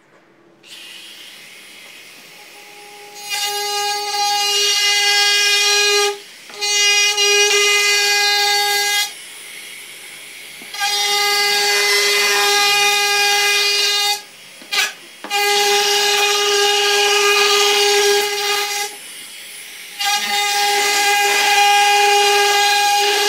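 Compact trim router running with a high whine while it is worked along the edges of wooden slats. The motor starts about a second in, then the whine swells loud in five stretches with quieter running between them.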